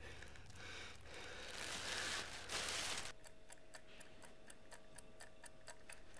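A rushing hiss swells and cuts off suddenly about three seconds in. After it, a clock ticks evenly, about four ticks a second, over a faint steady hum.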